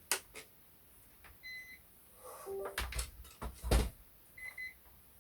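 Electronic beeps and a short chime as a Munbyn thermal label printer, just switched on, is detected by a laptop over USB. A single beep comes about a second and a half in and a double beep near the end, with a few sharp knocks in between, the loudest a low knock.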